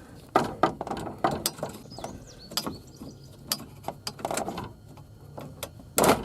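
Irregular clicks and knocks of parts under a truck's steering column being pushed and worked loose by hand, with the loudest knock near the end.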